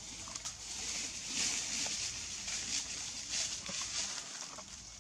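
Dry leaf litter rustling and crackling as monkeys shift and forage in it, in a run of short crackles that swell in the middle.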